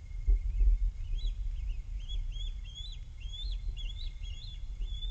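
Bald eagle calling: a run of quick, high, chirping notes repeated several times a second, starting about a second in. A low rumble is loudest in the first second.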